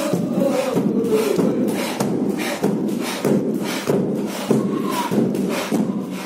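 A group of men chanting together in a steady, driving rhythm, with a strong accent about every two-thirds of a second, as they step around in a circle.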